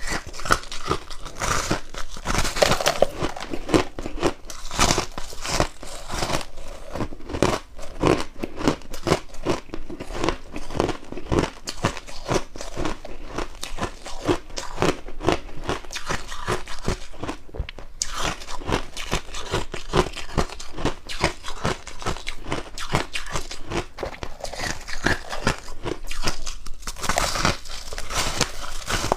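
Freezer frost being bitten and chewed: dense, continuous crunching and crackling.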